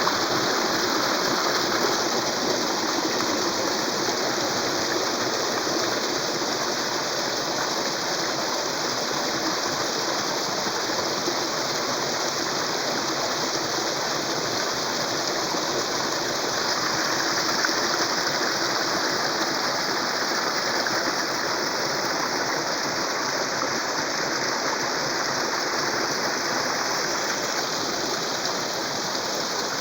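Steady rushing of flowing water, like a stream running over rocks, unbroken and even throughout.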